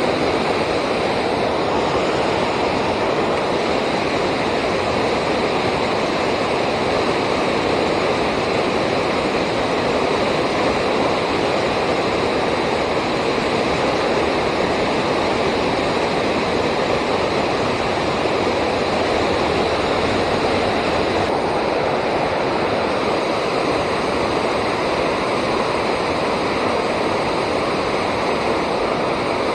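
Steady rushing of river water pouring over a dam, an even noise that does not change.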